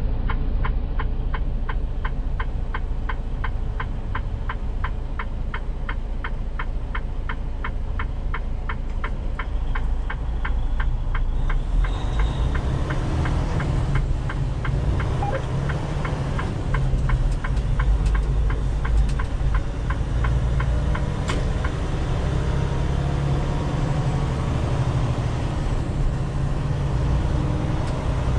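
Inside a semi-truck cab: the turn signal ticks steadily over the diesel engine and road noise for the first part, then stops about a third of the way through as the turn is finished. The engine and road noise then grow a little louder as the truck pulls away down the road.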